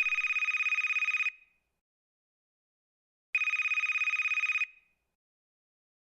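Telephone ringing: two warbling rings, each about a second and a quarter long with a fast trill, the second about three seconds after the first.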